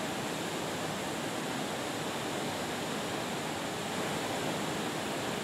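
Tea-processing machinery running in the factory hall: a steady, even rushing noise that does not change.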